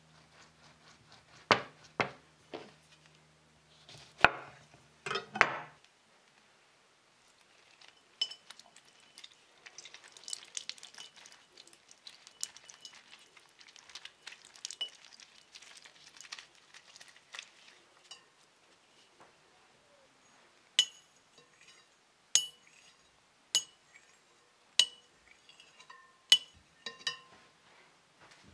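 A lemon cut with a knife on a wooden cutting board, with a few sharp knocks of the blade on the board. Then a wooden reamer twisted into lemon halves over a glass bowl, with soft wet squishing and juice dripping. Near the end come six sharp clinks on the glass bowl, each ringing briefly.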